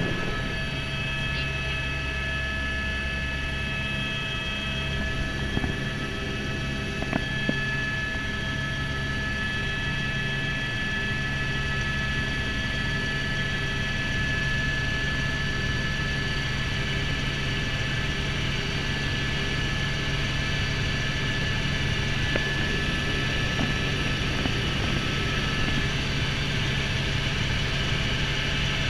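Helicopter's turbine engine and rotors running steadily as heard inside the cockpit: a constant high whine over a low drone, through lift-off and forward flight.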